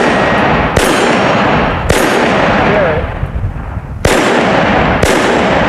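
Walther WMP .22 Magnum semi-automatic pistol firing four shots: two about a second apart, a pause of about two seconds, then two more. Each shot is sharp and followed by a long echoing decay.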